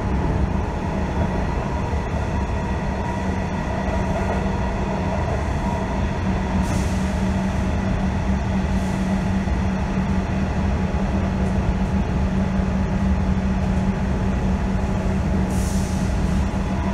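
Inside a Comeng electric suburban train carriage running at speed: the steady rumble of wheels and running gear with a constant low hum, and a few brief high hisses about seven, nine and sixteen seconds in.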